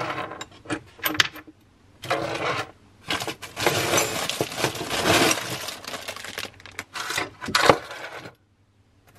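Loose metal screws, bolts and nails clinking as they are picked through and sorted by hand on a wooden shelf, with crinkling of a plastic bag through the middle and one sharp clink near the end.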